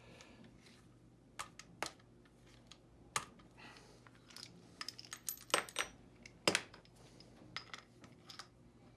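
Small metal lathe tool-post parts clinking and tapping together as they are handled: a series of sharp, irregularly spaced clinks, loudest around the middle, with a brief high metallic ring about five seconds in.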